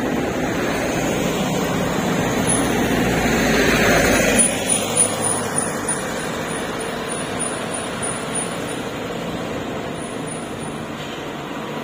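Truck and pickup engines running on a steep hill road, with tyre and road noise. It is loudest about four seconds in as a vehicle passes close, and a deep rumble drops away at that point. A faint, high, pulsing tone comes and goes over the second half.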